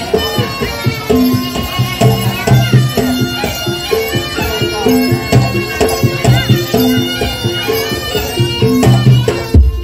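Live jaranan gamelan music with a shrill reed melody from a slompret shawm over drums and gongs, set to a steady repeating beat. There is a heavy low thump near the end.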